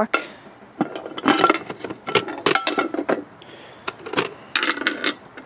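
Clicks, rattles and clatter from a coin-operated candy vending machine as the key lock on its top is undone and the lid is lifted off, with keys jangling. The knocks come in scattered clusters, not a steady rhythm.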